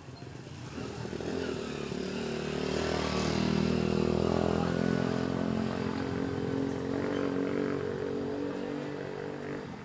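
A motor vehicle's engine passing, steady in pitch, growing louder over about three seconds and then slowly fading away near the end.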